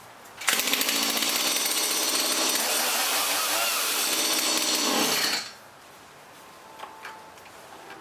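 Stihl MS170 chainsaw's small two-stroke engine starts about half a second in, runs loudly for about five seconds, then stops suddenly. The saw now starts and runs after its clogged fuel line between the tank and the carburettor was cleared.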